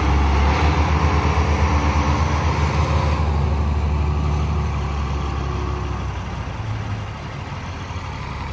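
Large diesel farm tractor engine running with a deep, fast-pulsing throb, growing gradually quieter over the second half.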